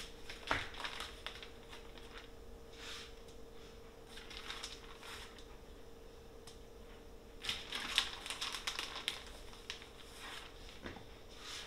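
Aluminium foil crinkling and rustling in irregular bursts as it is handled and folded into a foil packet, loudest about eight seconds in.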